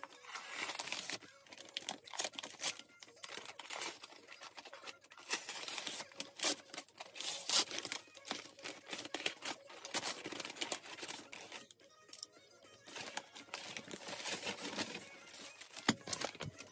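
Brown kraft-paper mailer bag crinkling and tearing as it is pulled open by hand, in irregular bursts, then plastic mailer bags rustling near the end.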